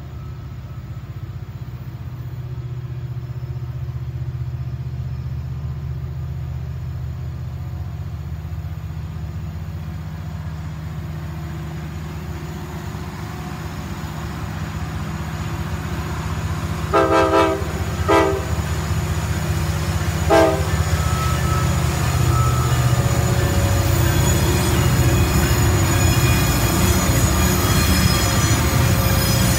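Norfolk Southern diesel locomotives leading an empty coal train approach, a steady low engine rumble that grows louder. The horn sounds three short times around the middle, and the noise of the passing train builds toward the end.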